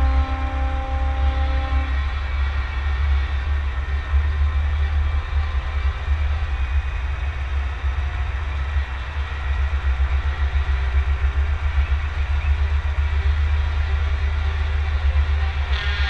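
Scania truck's engine running steadily at low parade speed, a deep low rumble heard from the cab roof with some wind buffeting on the microphone. A held, horn-like tone stops about two seconds in.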